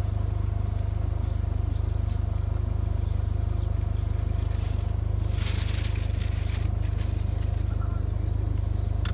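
An engine idling, a steady low drone with an even fast pulse. A brief hiss rises over it about five and a half seconds in.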